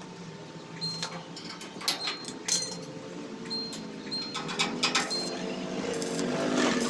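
Arc welder striking short tack welds on a stainless-steel sidecar frame: scattered brief crackles and clicks. Near the end a motor vehicle's engine grows louder.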